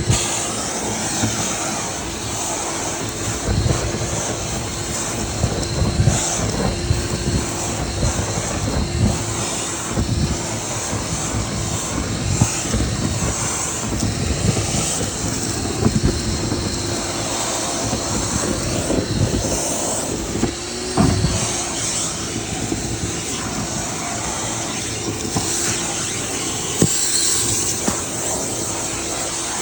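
Dryer vent cleaning machine running steadily with a constant hum and rush of air, with irregular low thumps and knocks throughout.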